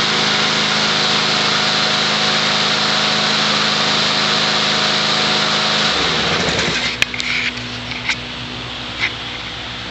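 Snapper walk-behind rear-bag mower's engine running steadily, then shut off about six seconds in, its pitch falling as it winds down to a stop. A few light clicks follow.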